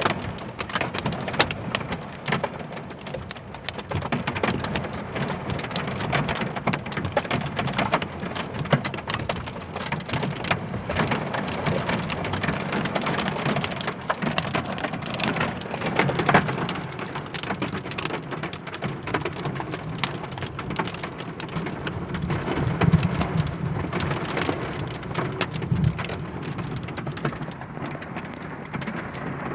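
Heavy rain falling steadily, with many sharp drop hits landing close by.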